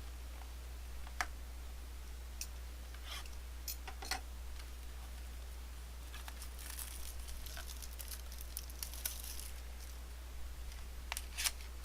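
Trading card packaging and cards being handled: scattered light clicks and taps, with a stretch of crinkling and tearing of wrapper about six to nine seconds in, over a faint steady low hum.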